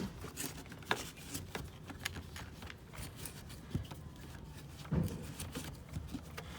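Handling noises: rustling and rubbing with scattered clicks, and a sharper knock about a second in and again about five seconds in.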